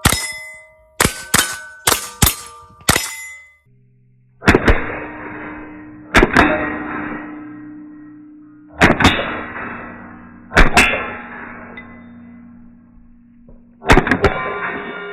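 A fast string of rimfire rifle shots, each with a ringing steel plate hit, during the first three seconds. From about four and a half seconds in, strummed guitar chords follow, each left to ring and fade.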